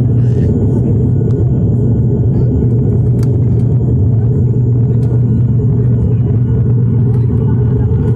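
Aircraft cabin noise during the climb after takeoff: the engines and rushing air heard from inside the passenger cabin as a loud, steady low rumble.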